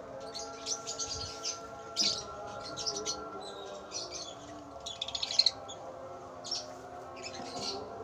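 Lovebirds chirping in many short, high calls, with a quick run of chirps about five seconds in. A steady low hum of several tones runs underneath.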